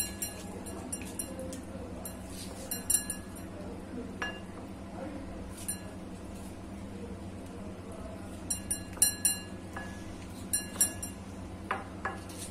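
A steel kitchen knife clinking against the rim of a glass bowl while mango pulp is sliced off peeled mangoes: short ringing clinks in small clusters, with pauses between them, over a steady low hum.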